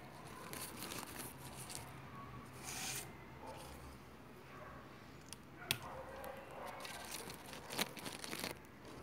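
Faint, irregular rustling and crackling, with two sharp clicks in the second half.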